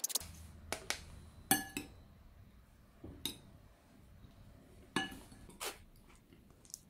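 A metal spoon and a metal mesh strainer clinking against glass bowls while chestnut pulp is being worked: about half a dozen separate short clinks, each ringing briefly.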